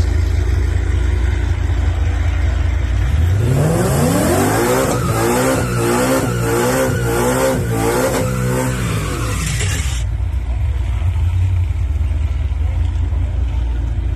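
Bolt-on-modified 2017 Ford Mustang GT's 5.0 L V8 idling, then revving up about three seconds in and held high with a wavering, pulsing note through a rear-tyre burnout. It drops back to a low idle about ten seconds in.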